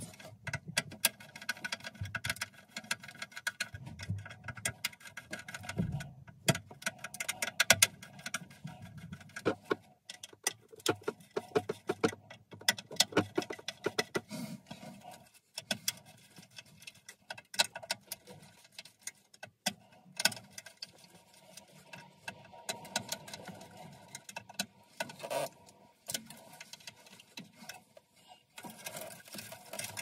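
Irregular small clicks, ticks and rustles of alarm-panel cables and a screwdriver being handled at the panel's terminal block as wires are sorted and pulled free.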